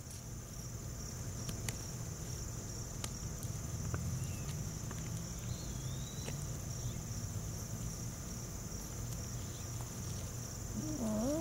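Steady high-pitched chirring of insects in the grass, with a low rumble underneath and a few faint clicks. Near the end comes a short voiced sound that dips and then rises in pitch.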